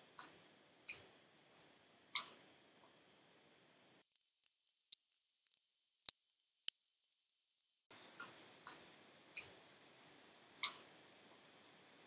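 Thick slime pressed and poked with the fingers, its air pockets bursting in scattered sharp pops and clicks with quiet between them, the loudest about two seconds in and near the end.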